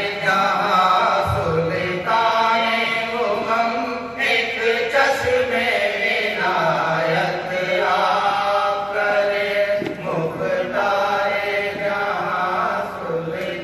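A group of men chanting an Urdu naat, a devotional poem in praise of the Prophet, together in one melodic line, amplified through a microphone.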